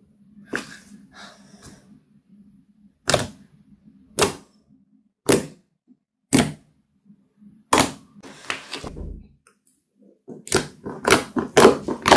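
Thick slime being poked with fingertips, each press giving a sharp pop of trapped air, about once a second, five times. Near the end it is kneaded and squeezed, giving a fast run of crackling pops.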